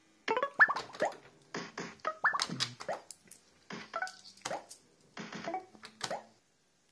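Barcrest MPU5 'Party Animal' fruit machine playing its electronic game sound effects as a credit is played: a run of about eight short pitched chirps and jingles, several with a quick upward swoop, with brief gaps between them.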